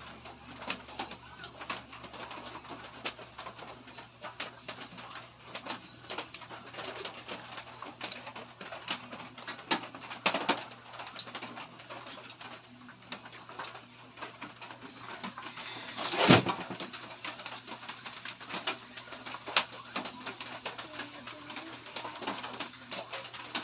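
Close-miked eating sounds of noodles eaten by hand: wet chewing and lip smacks in quick, uneven clicks, with a sharp knock about sixteen seconds in.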